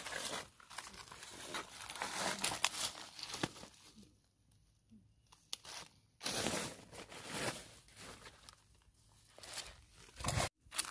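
Dry fallen leaves crackling and rustling underfoot and under hand as someone steps through deep leaf litter, then crouches and pushes the leaves aside. The rustles come in irregular bursts with a quieter lull partway through.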